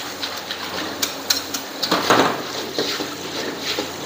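Kitchen pans and metal utensils clinking and knocking at an irregular pace.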